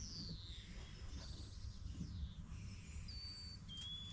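Faint bird calls: a falling whistle at the start and two short high whistled notes near the end, over a steady low rumble.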